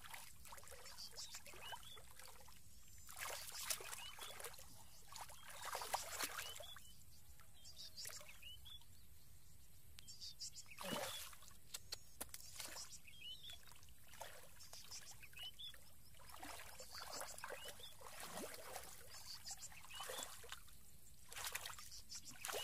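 Hands sloshing and splashing through shallow muddy water, in short irregular swishes every second or two.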